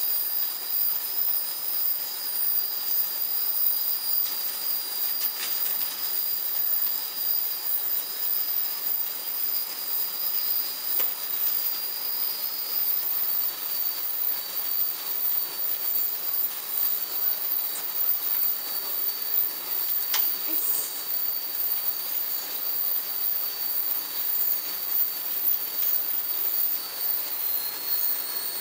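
A small-vial washing and drying machine running: a steady hiss of moving air with steady high-pitched whines, and a few faint clicks as the glass vials move along the conveyor.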